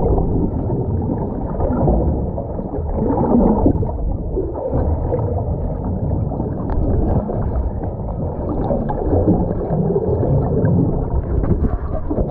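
Muffled underwater water noise picked up by a camera in a waterproof housing: a dull, fluctuating rumble of water sloshing and gurgling, with scattered faint clicks.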